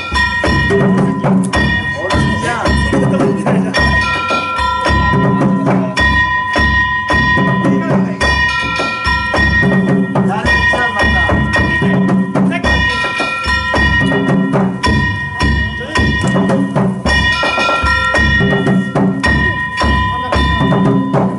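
Danjiri festival music (narimono) played on the float: drum strokes and ringing brass gong strikes in a fast, steadily repeating pattern.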